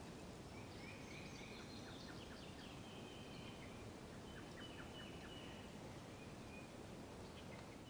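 Faint woodland ambience: small birds chirping in short scattered phrases over a steady background noise, the chirps thinning out after the middle.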